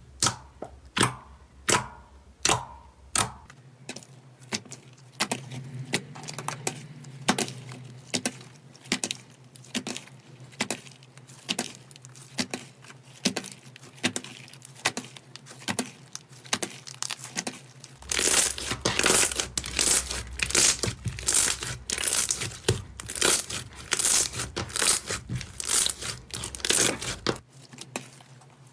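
Hands poking, pressing and stretching a blob of light blue slime, making sticky wet pops and crackles one after another. About two-thirds of the way in the popping and crackling turns louder and much denser.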